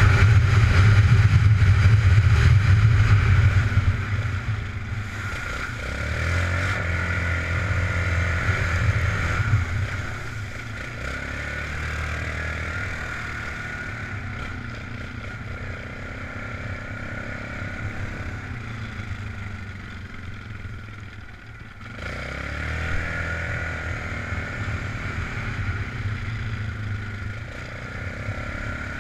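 ATV engine running under way, loud for the first few seconds, then quieter with the revs rising and falling. It eases off briefly about three quarters of the way through and revs up again a second later.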